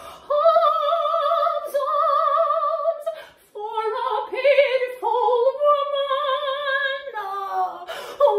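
A woman singing unaccompanied in an operatic soprano voice: several long held notes with wide vibrato in separate phrases, gliding down in pitch near the end.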